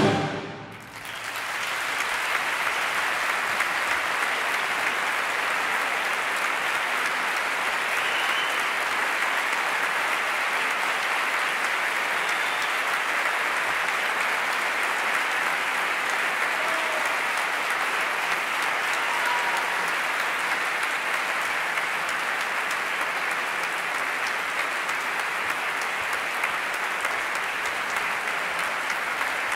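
The band's final chord dies away in the hall, and about a second in a large audience breaks into steady, sustained applause.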